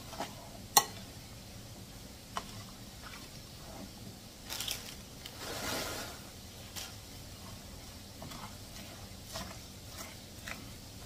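A metal fork stirring a creamy corn salad with crushed Fritos in a plastic bowl: wet squishing and crunching, broken by sharp clicks of the fork against the bowl, the loudest about a second in.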